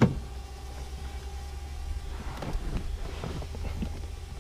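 A person climbing into a car's seat: a thump right at the start, then soft rustling and small knocks of clothing and hands against the seat and interior, over a steady low hum.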